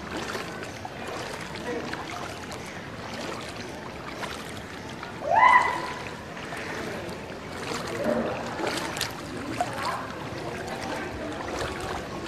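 Floodwater sloshing and swirling as someone wades through it. About five seconds in there is a short, loud rising cry.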